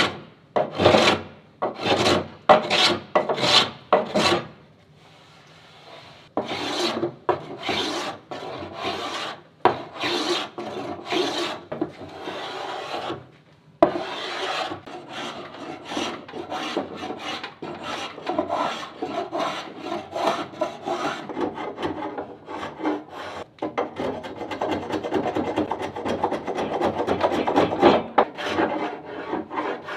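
Hand-planing the edge of a glued birch-strip wooden longboard deck, blades shaving the wood. First come separate strokes from a small block plane, with a pause about five seconds in. Then a spokeshave takes quicker, almost continuous strokes to round over the edge.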